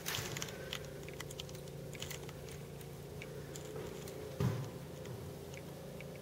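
Scattered light clicks and taps with one thump about four and a half seconds in, over a steady low hum: handling noise and footsteps from a camera being carried through the rooms.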